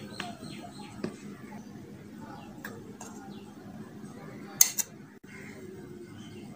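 Spoon clinking and scraping against a glass mixing bowl as flour and cocoa are folded into cake batter: a few scattered sharp clinks, the loudest a quick double clink about two-thirds of the way through.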